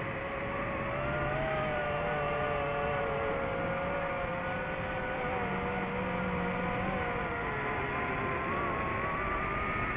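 Whine of a drone's motors and propellers, one steady pitched hum whose pitch wanders slowly, sagging about two thirds of the way in and climbing again near the end.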